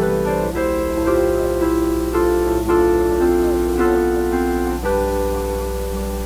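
Keyboard playing slow, sustained chords that move to a new chord every second or so.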